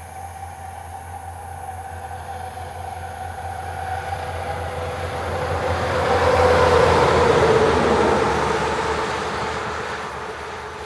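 A semi-trailer truck passing at highway speed: its engine and tyre noise grows steadily louder, is loudest as it goes by about two-thirds of the way in, then fades. Its steady hum drops slightly in pitch as it passes.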